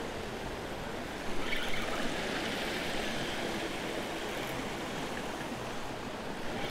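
Steady rush of river water spilling over a low weir and rocks.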